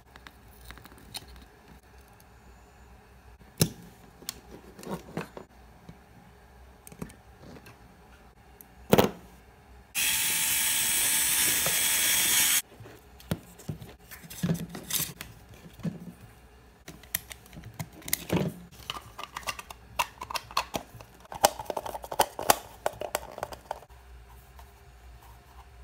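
Scattered clicks and taps from handling small plastic boat parts, broken by a loud, high, steady whir lasting about two and a half seconds that starts and stops abruptly: a small high-speed brushed DC motor of the mini 4WD kind spinning freely when switched on.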